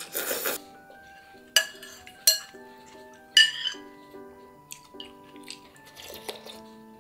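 A short slurp of ramen noodles at the start, then a metal spoon clinks sharply against a ceramic bowl three times, followed by lighter taps as soup is scooped and eaten, over soft background music.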